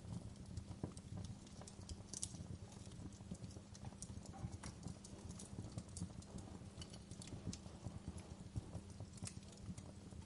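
Wood fire crackling in a fireplace: irregular pops and snaps, some sharper than others, over a low steady rumble.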